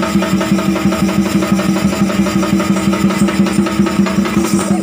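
Drums beaten in a fast, even rhythm over a steady, unbroken held drone note, as accompaniment to a folk dance performance.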